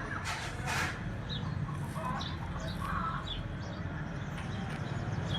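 Short, high bird chirps repeated every second or so, with a few lower calls, over a steady low rumble.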